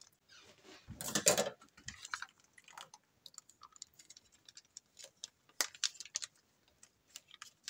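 Plastic sauce packet being handled and opened by hand: scattered small crinkles and clicks, with one louder rustle about a second in.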